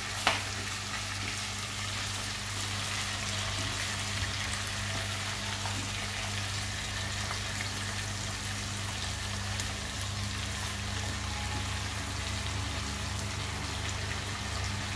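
Chicken leg pieces frying in hot oil in a kadhai, a steady sizzling hiss, with one sharp knock just after the start.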